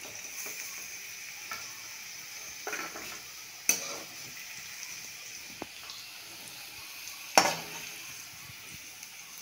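Potato sticks and bhim korai beans sizzling steadily in hot mustard oil in a wok as they are scooped out with a metal spatula. The spatula scrapes and clinks against the pan, with two louder clanks, one near the middle and one near the end.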